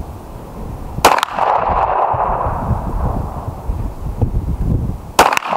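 Two pistol shots from a Smith & Wesson M&P about four seconds apart, each a sharp crack with a second quick report right behind it.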